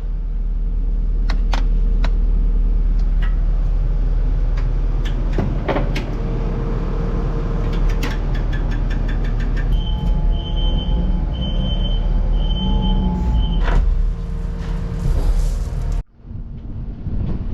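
Kubota skid steer's diesel engine running with a steady low rumble, with scattered metal clanks and a row of four short high beeps from the machine's warning beeper about two-thirds of the way through. The engine sound cuts off abruptly near the end.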